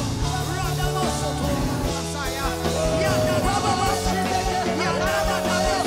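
Church worship music with held keyboard chords and a steady beat, and voices singing and crying out over it.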